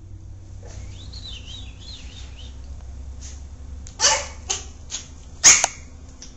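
Small puppy giving a faint high, wavering whine, then a few short sharp barks from about four seconds in.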